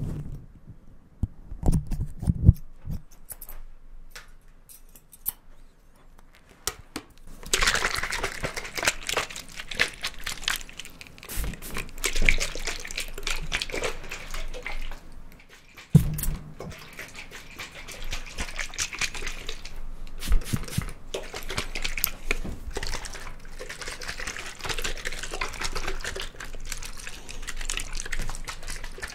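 Scissors snipping and fingers rubbing through a furry microphone windscreen, close up. For the first few seconds there are sparse, sharp snips; from about seven seconds in there is a dense, crackly rustle with clicks through it, which briefly stops about halfway through.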